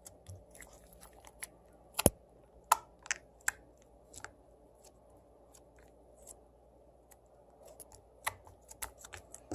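Sticky toothpaste slime being handled close to the microphone, making irregular small clicks and pops, the sharpest a few seconds in and again near the end.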